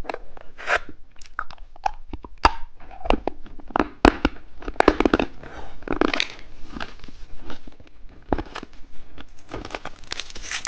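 Close-miked crunching and crackling as a small mushroom-shaped candy is unwrapped and bitten into: sharp, irregular crunches, with a denser crinkling of wrapper near the end.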